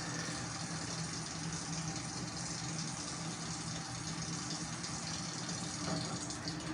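Steady hiss of heavy rain, with a low steady hum underneath.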